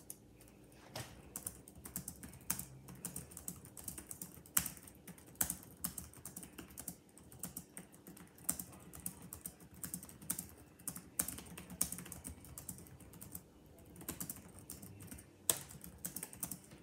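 Fast typing on an old Dell laptop's backlit keyboard: a quick, uneven clatter of key clicks with a few louder strokes. The typing starts about a second in and stops shortly before the end.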